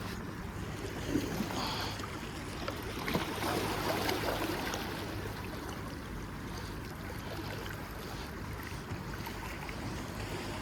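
Water splashing and lapping, busiest about one to five seconds in, over steady wind noise on the microphone.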